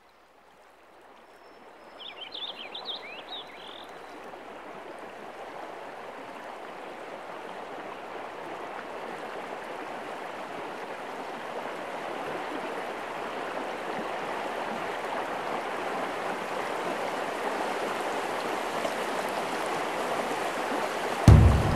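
A steady rushing water sound that fades in and slowly grows louder, with a short flurry of bird chirps two to three seconds in. A sudden loud low thump comes near the end.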